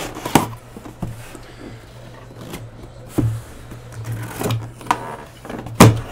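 White cardboard box being handled and opened: a series of knocks, taps and scrapes of the lid and flaps, the loudest near the end, over a low steady hum.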